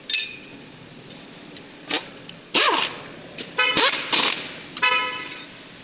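Workshop noise: a run of short, loud, sudden clanks and bursts over a steady low background hum. A few carry a brief pitched ringing tone.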